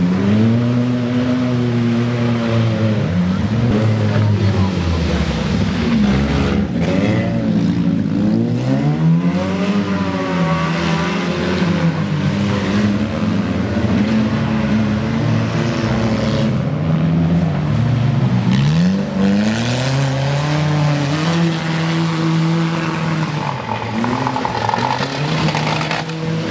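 Wreck-race cars' engines revving hard, their pitch rising and falling over and over as the drivers accelerate and lift.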